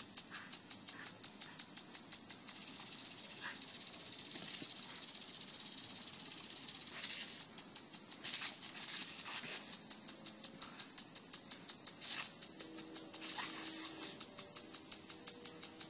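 Lawn sprinkler spraying water: a hiss pulsing quickly at about five beats a second, which turns to a continuous rush for a few seconds in the middle.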